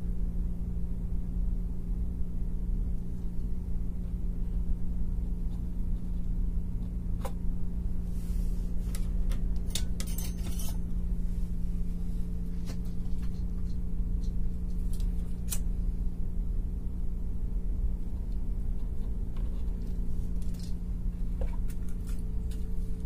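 Scattered small clicks and brief metallic rattles, busiest in the first half, from handling wires and small parts while wiring up an amplifier board. A steady low hum runs underneath.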